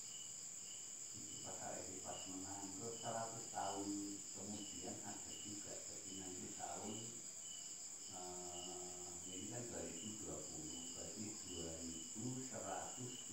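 Insects chirping: a steady high trill with a regular pulsing chirp, under faint, indistinct voices talking.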